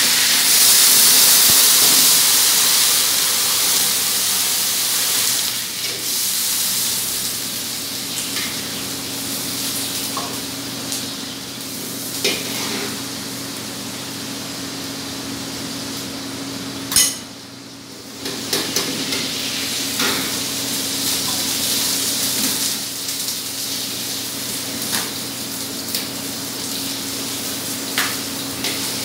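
Food sizzling as it is stir-fried in a metal wok over a gas burner, loudest in the first few seconds, with a ladle clanking against the wok now and then over a steady low hum.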